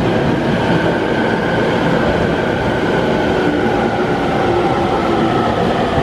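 Steady running noise heard inside a moving electric train carriage, with a faint whine slowly falling in pitch.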